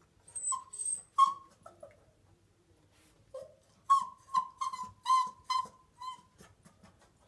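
Miniature poodle puppy whining and whimpering in short high-pitched cries, with a thin high whine in the first second and a quick run of about six whimpers about four seconds in. The whining is the sign of a puppy anxious and hesitating at the top of the stairs, afraid to go down.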